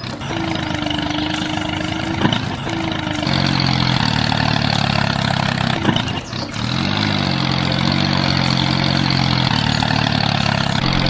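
A small tractor engine running steadily. The note rises about three seconds in and swoops up briefly about seven seconds in.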